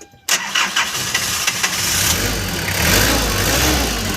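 Nissan Urvan Escapade's engine cranked by the starter and catching about a third of a second in, picking up speed at around two to three seconds and then settling toward idle. The alternator runs on a newly replaced bearing, with no grinding.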